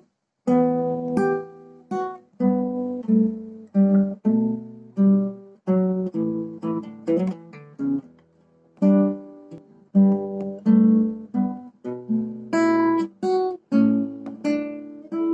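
Nylon-string classical guitar playing chords, each struck sharply and left to ring and fade, about one or two a second, with a brief stop about eight seconds in.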